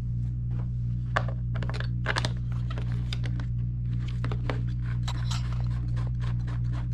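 Small plastic clicks and rattles from a motorcycle tail light's wiring connectors being handled and plugged into the wiring harness, scattered and irregular, over a steady low hum.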